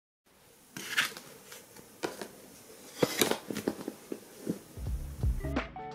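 Scattered soft paper rustles and light taps from handling a paperback book and its pages. Background music with low sustained notes fades in near the end.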